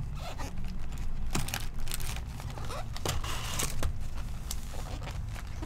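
Handling noise from a cardboard trading-card hobby box being opened: rustling and crinkling of cardboard and the foil packs inside, with scattered sharp clicks and taps.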